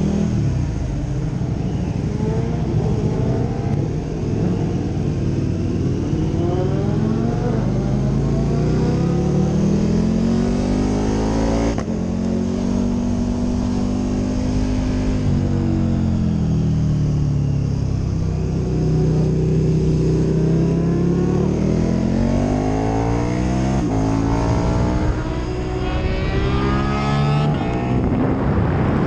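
KTM 1290 Super Duke R's V-twin engine accelerating up through the gears, its pitch climbing and dropping back at each upshift. Wind noise on the microphone grows with the speed.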